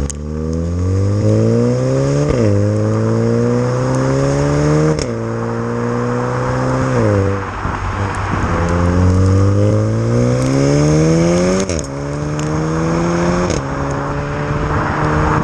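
Mk7.5 VW Golf R's 2.0-litre turbocharged four-cylinder, its exhaust resonator removed, pulling hard through the DSG gearbox and heard from beside the tailpipes. The revs rise again and again, each upshift marked by a sudden drop in pitch, and a short crack comes with some of the shifts. Road and wind hiss sit underneath.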